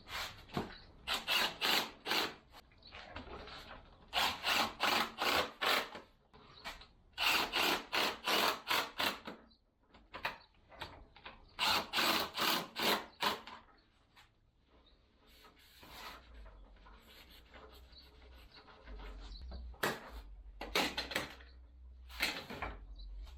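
Wood being rubbed by hand with rhythmic back-and-forth strokes, in four bursts of several strokes each at about three strokes a second, with fainter scattered strokes afterwards.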